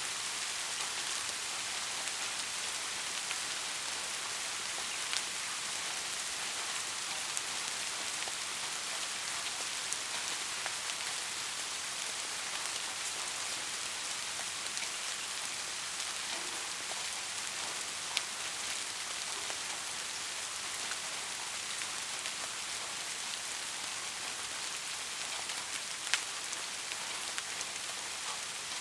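Steady rain with a constant hiss and scattered sharp drop impacts, a couple of them louder, near the middle and towards the end.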